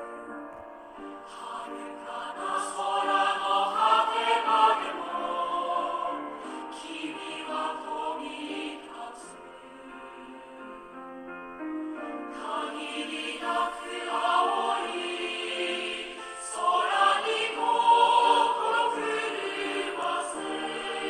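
Background music: a choir singing in parts, swelling louder a few seconds in and again late on.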